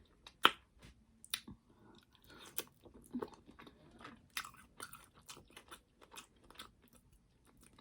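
Close-up chewing and biting of food: irregular wet clicks and smacks of a mouth eating, with two sharper clicks in the first second and a half.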